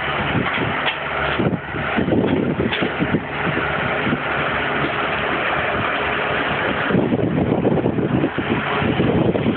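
Hitachi EX120 hydraulic excavator's diesel engine running steadily, with brief surges as it works.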